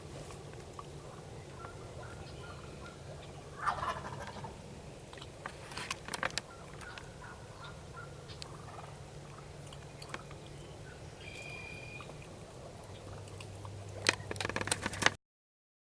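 Wild turkey gobbling, one loud gobble about four seconds in, amid fainter calls, with a run of sharp clicks and knocks near the end.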